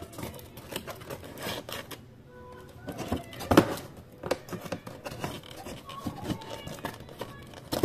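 Cardboard packaging box being handled, its flaps opened and folded: irregular rustling and scraping of cardboard, with a sharp knock about three and a half seconds in.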